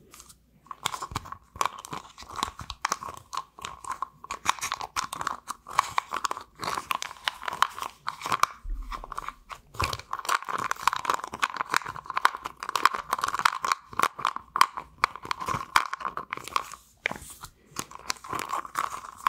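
Fruit punch Ice Cubes chewing gum being chewed with the mouth right at the microphone: a steady run of quick wet clicks and smacks, broken by brief pauses.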